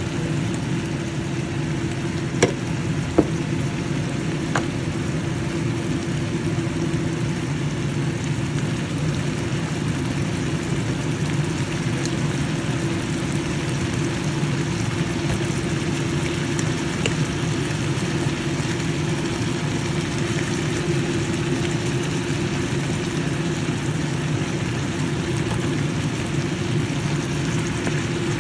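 Steady whirring machine hum with a constant low tone and a hiss, with two sharp clicks about two and a half and three seconds in.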